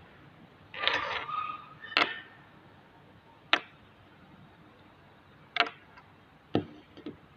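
Workshop handling noises during a speaker repair: a short scrape about a second in, then sharp clicks and knocks at uneven gaps, as tools and parts are picked up and set down.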